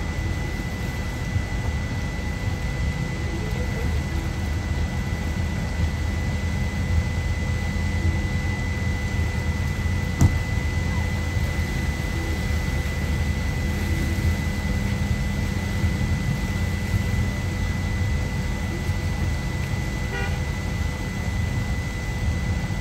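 Steady low rumble of idling engines, the pickup on the ramp and boats on the water, with a faint steady high-pitched tone over it. One sharp knock about ten seconds in.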